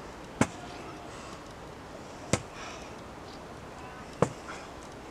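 Wooden walking staff knocking on a stone path, three sharp single knocks about two seconds apart, in step with a slow walk.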